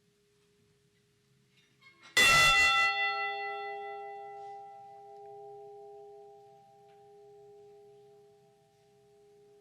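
A memorial bell struck once, then ringing on and slowly fading, its low hum note lingering longest: a single toll for one fallen crew member whose name has just been read.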